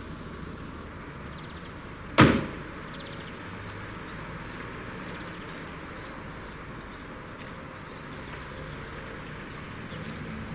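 A single sharp bang about two seconds in, dying away within a fraction of a second, over a steady background noise.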